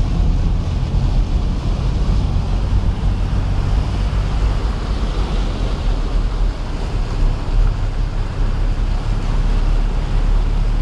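Nissan Patrol Y60 wading through deep floodwater: a steady low engine drone under the rush and slosh of water pushed aside by the vehicle, heard from inside the cab.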